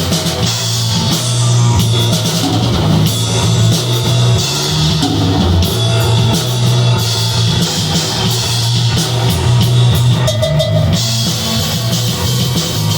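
Rock trio playing: a drum kit with steady cymbals, a fretless bass holding prominent low notes, and electric guitar.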